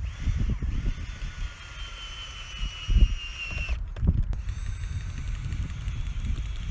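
Cordless drill driving screw-in ice anchors into lake ice. The motor's whine sinks slowly in pitch as the anchor bites, stops a little under four seconds in, then starts again on the next anchor.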